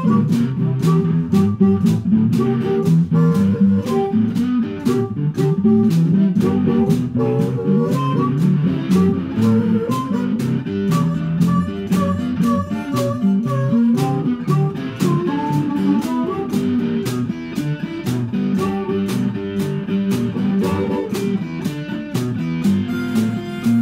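Live blues jam in G: guitar playing over a drum kit keeping a steady beat, improvising on a I–IV–V progression.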